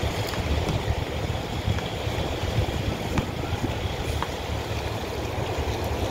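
Wind buffeting the microphone, an uneven low rumble without any steady engine note, with a few faint ticks.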